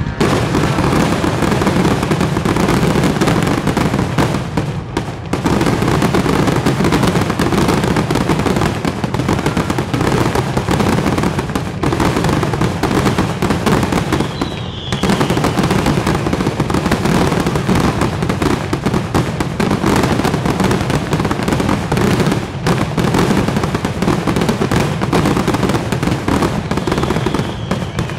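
Aerial fireworks display firing a dense, continuous barrage of shell bursts, booms and crackling, with only brief lulls.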